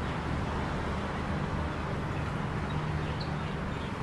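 Steady road traffic: a continuous rumble of car engines and tyres, with an engine hum that grows a little louder in the middle.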